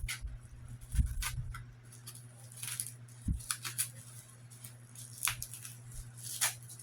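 Earring subscription package being opened by hand: intermittent crinkling and rustling of packaging, with a couple of soft knocks as it is handled, over a steady low hum.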